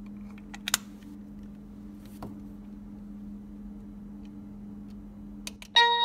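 Plastic clicks from a wireless doorbell push-button being handled and snapped together, with one sharp click about a second in, over a steady low hum. Near the end the doorbell's receiver speaker starts playing its electronic chime melody.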